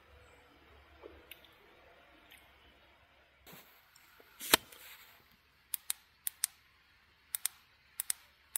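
Push-button switch on a handheld UCO lantern-flashlight being pressed to turn it on: one sharp click, then four pairs of quick clicks and a last single click.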